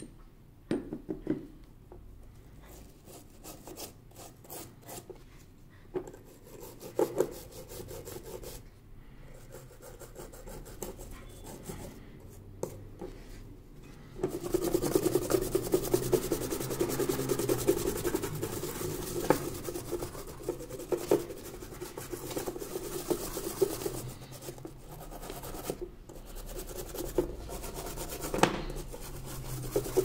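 A toothbrush scrubbing flux off a soldered keyboard circuit board, bristles rubbing fast and steadily over the board from about halfway in. Before that come quieter, scattered scratches and a few light clicks.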